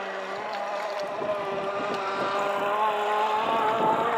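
Small petrol two-stroke engine of a radio-controlled shovel-nose gas boat running at speed on part throttle. A steady, high buzz that grows louder and rises slightly in pitch toward the end.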